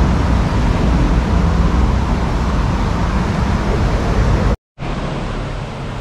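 Steady rumble of road traffic on the bridge overhead. It is broken by a brief dropout to silence about four and a half seconds in, and comes back a little quieter.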